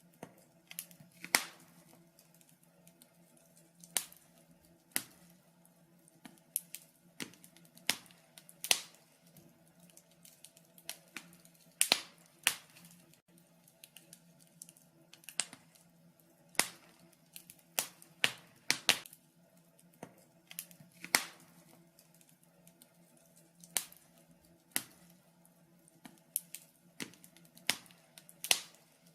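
Wood fire crackling in a fireplace: sharp, irregular pops and snaps, roughly one or two a second, over a faint steady low hum.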